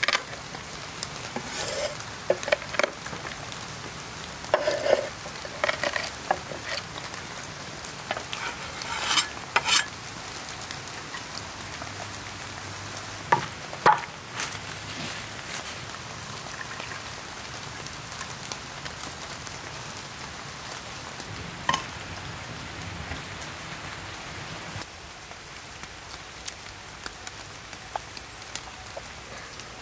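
Kitchen knife crushing whole black peppercorns on a wooden board, a scatter of sharp cracks and clicks through the first ten seconds. A couple of solid knife strikes on the board follow, cutting a lime, over a steady background hiss that drops a little near the end.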